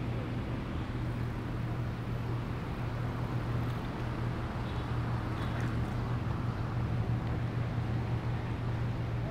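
Steady outdoor ambience recorded on a moving bicycle: a constant low hum under an even haze of noise, with no distinct events.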